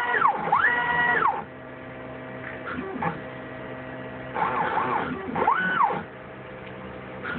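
Stepper motors of a DIY CNC router (Xylotex 425 oz-in steppers driven by a Gecko G540 at 48 V) moving the axes through an air-cut job. On each rapid move the whine rises to a high pitch, holds, and glides back down as the axis speeds up and slows. Between the rapids there is a lower steady hum from the slower moves.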